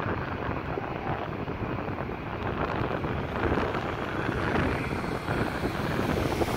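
Wind buffeting the microphone over a low rumble of vehicle noise, getting a little louder in the second half.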